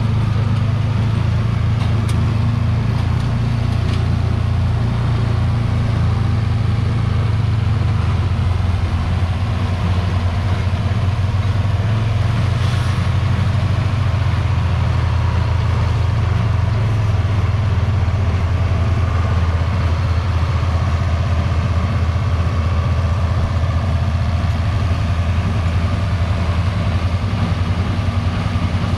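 John Deere 4430 tractor's six-cylinder diesel engine running steadily under load while pulling a square baler through the hay. Its note shifts slightly about eight to ten seconds in.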